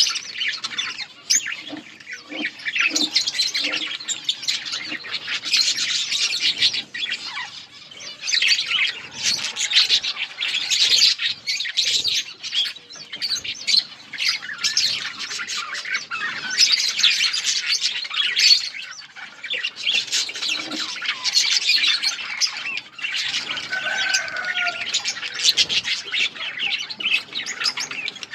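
A colony of budgerigars chirping and chattering continuously, many birds calling over one another, with occasional squawks and wing flutters.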